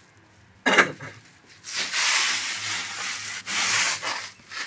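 Javan stink badger scratching and digging in loose soil: two stretches of scratchy, rustling scraping, the first about a second and a half long and the second shorter, with a brief sound just before them.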